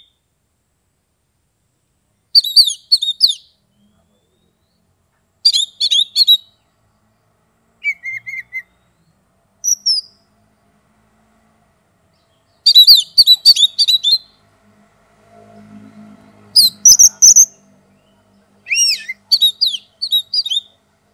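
An oriental magpie-robin singing: about seven short phrases of rapid, sharp whistles and chirps with pauses of a second or two between them, the longest phrase a little past the middle.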